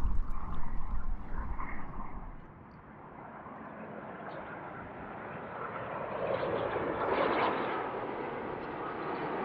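Jet airliner engines, rising to a peak about seven seconds in as the aircraft passes, then easing slightly. Wind buffets the microphone at the start.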